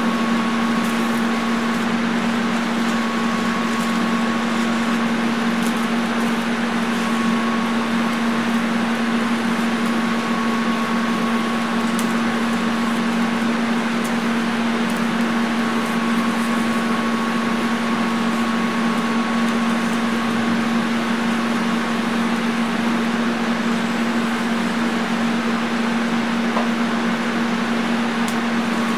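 TIG welding arc from a Lincoln Square Wave TIG 200 running without a break: a steady buzz with hiss as weld metal is built up on the part.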